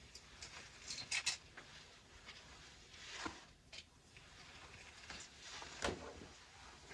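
Faint rustling and light clicks of a comb and flat iron being drawn through straight human-hair wig hair, with a louder short knock near the end.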